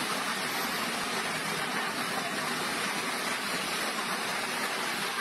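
Fast floodwater rushing in a steady, even wash of noise, with no separate events.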